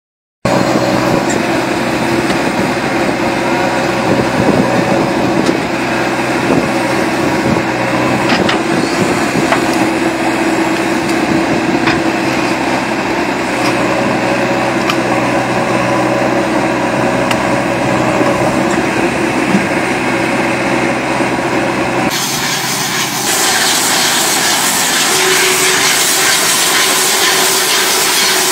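Diesel engines of a JCB backhoe loader and a mobile brick-making machine running steadily, with a few sharp knocks, as soil is loaded into the machine. About 22 seconds in it cuts to a hissier machine noise from the brick-making machine rolling along and laying rows of bricks.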